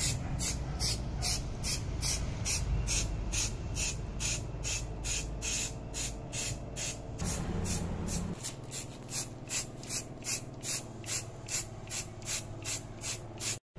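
Aerosol spray-paint can hissing in short, rapid bursts, about three a second, as it is pulsed over metal parts.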